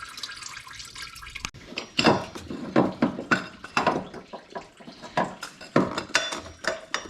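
Coolant trickling and dripping, then, from about a second and a half in, a run of irregular metallic clinks and clatters of hand tools and bolts being worked.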